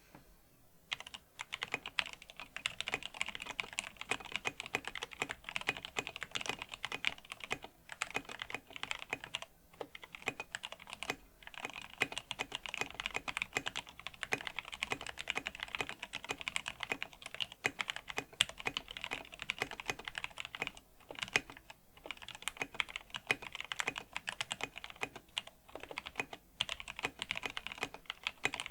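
Typing on a Tofu 60% mechanical keyboard fitted with lubed vintage Cherry MX Black linear switches on 78 g springs and SA-profile Chalk keycaps: rapid, continuous keystrokes. The typing starts about a second in and runs with a few short pauses, near 8, 10 and 21 seconds.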